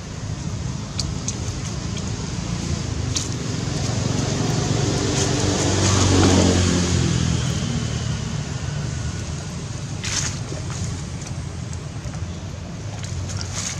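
A motor vehicle's engine passing by, growing louder to a peak about six seconds in and then fading away, with a few faint clicks and rustles nearby.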